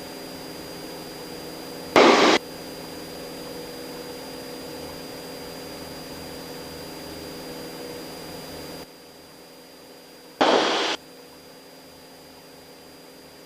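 Cessna 172 engine and propeller drone heard through the cockpit intercom, steady, with two short loud bursts of static, one about two seconds in and one about ten seconds in. The drone drops in level about nine seconds in.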